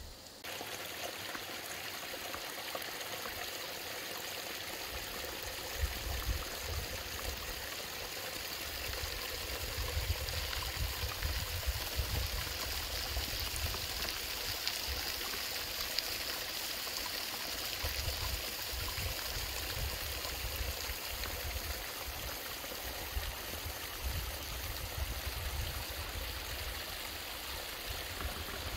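Mountain waterfall rushing steadily.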